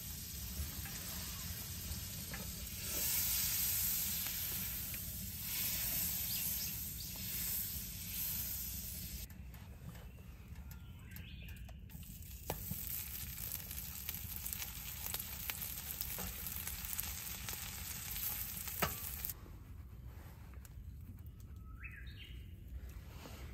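Butter sizzling in a steel frying pan on a wood stove, the hiss swelling twice. Later, slices of pumpernickel fry in the pan while being pressed with a wooden spatula, with a few sharp ticks; the sizzling stops suddenly near the end.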